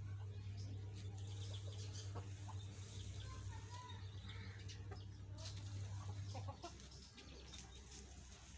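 Chickens clucking softly, with a few short calls, among a rooster and hens pecking in dirt. Under them a steady low hum stops about six and a half seconds in.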